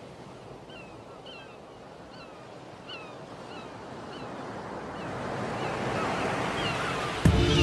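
Surf washing in, swelling steadily louder over the last few seconds, with short repeated bird calls above it about twice a second. A music track starts abruptly just before the end.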